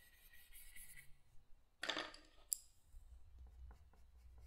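Faint colored-pencil sounds: a brief rattle and one sharp click about two and a half seconds in as a pencil is put down on the wooden table and another picked up, then light scratchy pencil strokes on paper.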